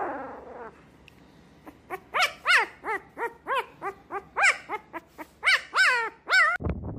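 Very young puppy howling: a short wavering howl, then a quick run of short high yips, roughly four a second, each rising and falling in pitch.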